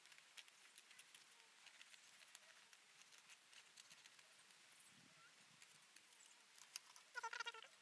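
Near silence with faint scattered clicks. Near the end comes a short, high-pitched animal-like call.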